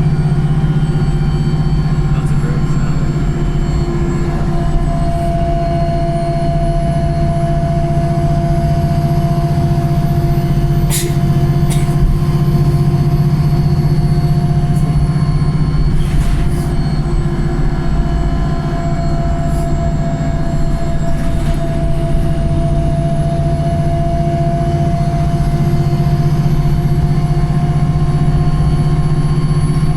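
Interior of a Wright Pulsar single-deck bus under way: a steady drivetrain drone with whining tones from the whiny gearbox and very loud differential, and a high whine that rises and falls twice with road speed. A few sharp knocks or rattles of the bodywork come through over the top.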